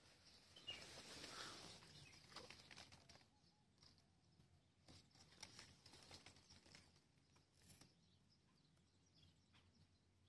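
Near silence: faint rustling and handling noise with a few soft clicks, busier in the first four seconds and thinning out after.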